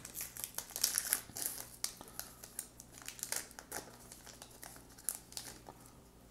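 Crimped wrapper of a trading card pack crinkling as it is opened and handled by hand, with a dense run of sharp crackles that thins out and stops about five and a half seconds in.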